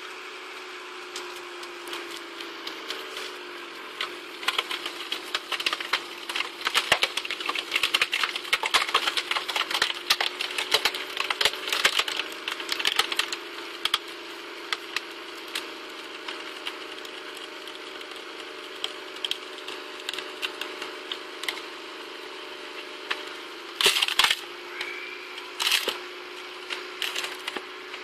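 Screw-cone log splitter turned by a car's wheel hub: the car engine runs steadily, its pitch sagging a few seconds in as the cone bites into the log. The wood cracks and splinters densely as the cone bores in, with a few loud sharp cracks near the end as the log splits apart.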